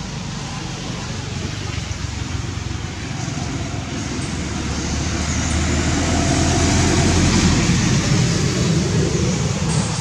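A motor vehicle's engine and road noise, growing louder to a peak about seven seconds in, then easing off as it passes.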